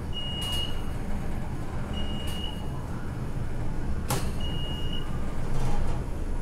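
Steady low rumble of an elevator car, with a short high beep repeated three times about two seconds apart and a sharp click about four seconds in.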